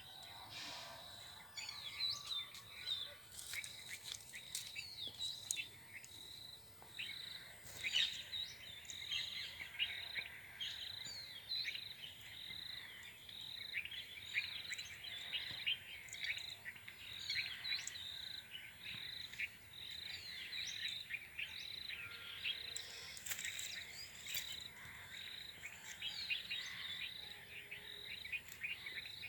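Flock of rose-ringed parakeets calling with many short, rapid chirps and screeches, over a regular pulsing insect call.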